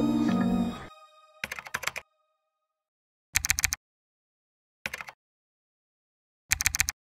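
Calm music fades out within the first second. Then come four short bursts of rapid computer-keyboard typing clicks, each under half a second, separated by dead silence: a typing sound effect.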